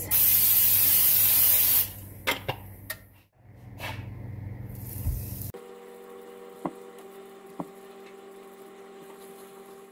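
Aerosol cooking oil spray hissing into a nonstick frying pan in one loud burst of about two seconds, followed by a few light clicks and knocks. After that comes a faint steady hum.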